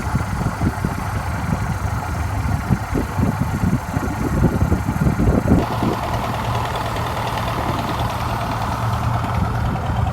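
Wind buffeting the microphone in gusts, over a steady low drone. The gusts ease about halfway through, leaving the drone.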